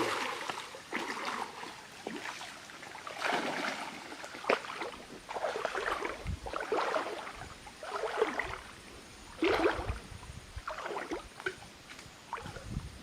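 Water splashing and sloshing in a series of short swishes, roughly one a second.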